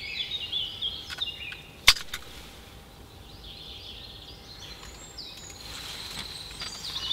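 Woodland songbirds singing, with short chirps and trills near the start and again in the latter half, and a single sharp click about two seconds in.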